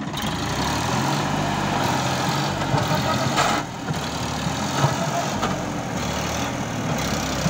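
Sonalika tractor's diesel engine running steadily while the tractor sits bogged down in deep paddy-field mud. There is a short dip in its sound about three and a half seconds in.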